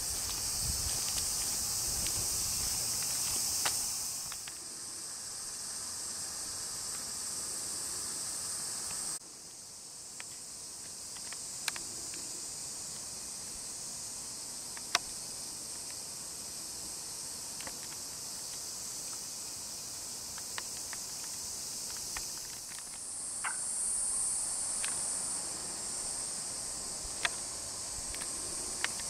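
A steady, high chorus of summer insects, with a few faint clicks. The sound drops abruptly about nine seconds in and swells again near the end.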